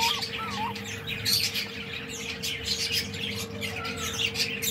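Small birds chirping and squawking, many short high calls in rapid succession, with a steady hum underneath.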